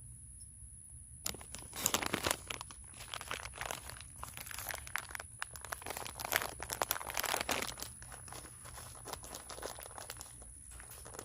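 Chicken wire being handled against a coop frame: a dense, irregular run of crinkling and crackling starting about a second in and thinning out near the end.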